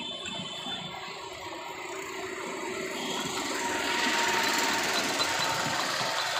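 Steady mechanical rattle of a running vehicle engine amid street traffic noise, getting louder about four seconds in.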